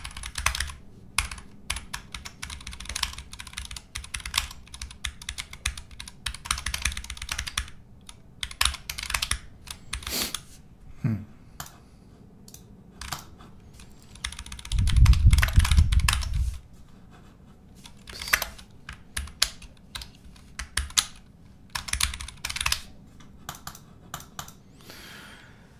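Typing on a computer keyboard in quick runs of key clicks with short pauses between them. About two thirds of the way through comes a low rumble lasting about a second and a half, the loudest sound, and shortly before it a brief falling squeak.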